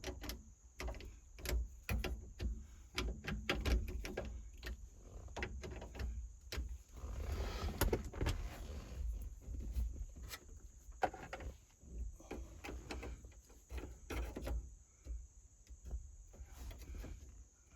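Irregular clicks and knocks of hands working the new turn signal switch and its parts in the steering column, with a longer scraping rustle about halfway through.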